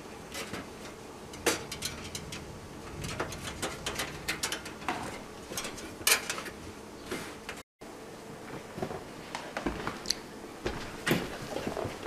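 Irregular light clicks and taps of a thin stamped-metal motherboard I/O shield being handled and pressed into the rear opening of a steel PC case.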